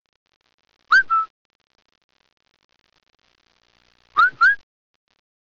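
Whistle-like chirps accompanying a logo intro. A quick two-note chirp sounds about a second in, and a second pair of rising chirps follows about three seconds later.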